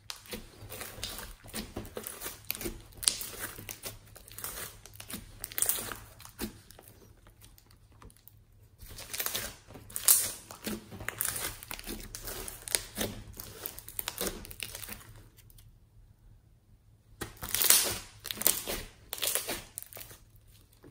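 Hands squeezing, kneading and stretching bead-studded slime, giving dense runs of crackling, popping clicks. The crackling comes in three spells with short pauses between them, about eight seconds and fifteen seconds in.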